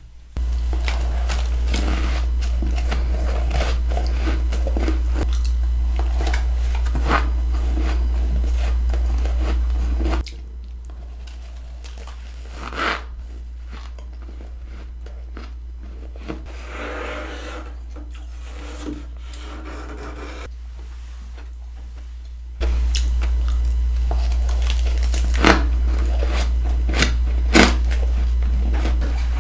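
Close-miked chewing and crunching of freezer frost: repeated crisp crunches as mouthfuls of frost are bitten and chewed, over a steady low hum that drops away for the middle stretch.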